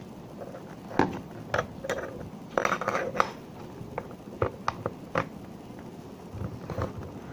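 Scattered sharp clicks and taps of small hard plastic pieces being handled and set down, as a model plane is unpacked and placed. A quick run of clicks comes about two and a half to three seconds in, and single taps follow now and then.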